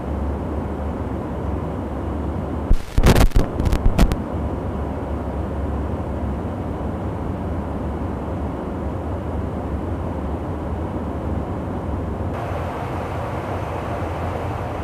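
Steady low rumble of a KC-135 tanker in flight, heard inside the boom operator's pod, with a quick cluster of sharp clicks and knocks about three seconds in.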